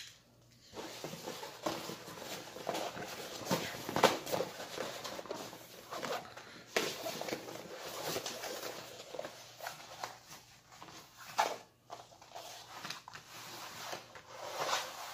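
Paper rustling and crinkling as a rolled diamond painting canvas in its printed wrapping is unrolled, turned over and smoothed flat by hand, with a few sharper crackles.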